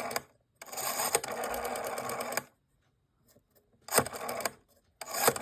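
Rotary dial of a 1956 Northern Electric telephone being turned and spinning back several times, each return a whirring run of fine, even clicks, with short pauses between digits.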